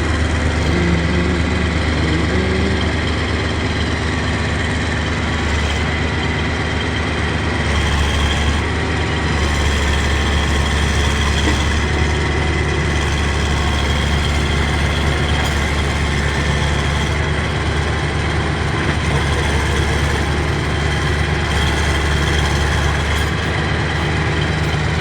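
A dredger's engine running steadily: a loud, even, deep drone with constant higher tones over it and no changes in pace.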